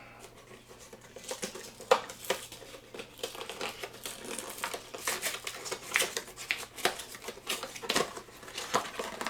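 Plastic packaging crinkling and clicking as it is handled and rummaged through, in scattered short crackles with a few sharper clicks.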